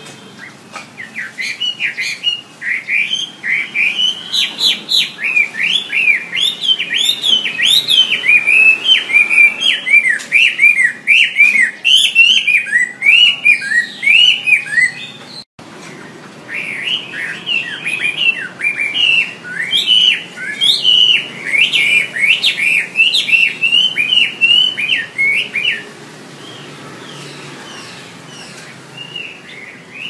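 Chinese hwamei (Garrulax canorus) singing a loud, continuous run of rapid whistled notes that rise and fall, broken by a brief gap midway and a quieter lull a few seconds before the end.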